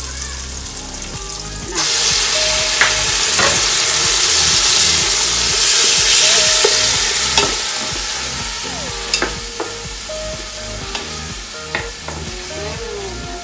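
Chicken pieces hitting hot oil with garlic and onion in a pot, starting a loud sizzle about two seconds in that slowly dies down. A wooden spatula stirs the pieces, giving a few short knocks against the pot.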